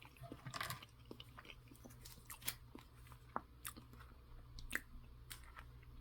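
Faint chewing and mouth sounds of someone eating turkey pâté, with scattered small clicks.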